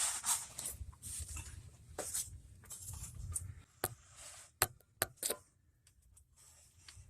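Rustling and scraping handling noises with several sharp clicks around the middle, then a quieter stretch near the end.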